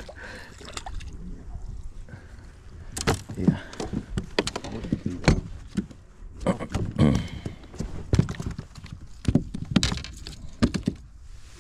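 Irregular knocks and thumps inside a small fishing boat while a just-caught fish is landed and handled, with a brief "Oh, yeah" about three seconds in.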